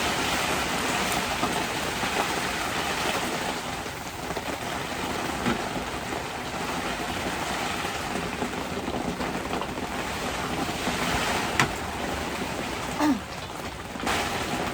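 Heavy rain pouring down in a steady, dense hiss, with a few sharp knocks of drops or objects striking.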